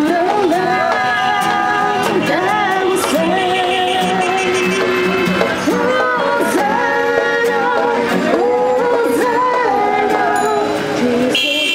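A Christian worship song sung by a young woman into a handheld microphone and a young man, accompanied by an acoustic guitar, with long held notes.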